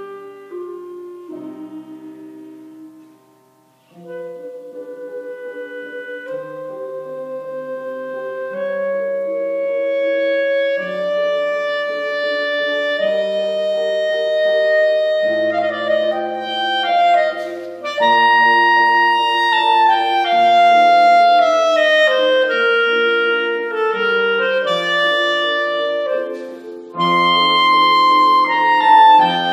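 Clarinet playing a melody of held and moving notes; it drops almost to nothing for a moment about three seconds in, then comes back and grows louder through a fuller, higher passage.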